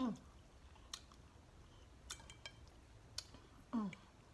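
Close-up eating sounds while chewing pork neck bone: sharp wet mouth clicks and smacks about once a second, with a short falling "mm" hum at the start and another near the end.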